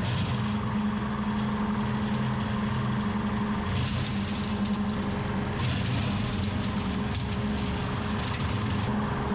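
Diesel tractor engine running steadily under load, driving a PTO-powered rotary cutter (brush hog) that chops through dry brush and small saplings. Higher-pitched rushing noise swells and eases over the steady engine hum, loudest in the middle of the stretch.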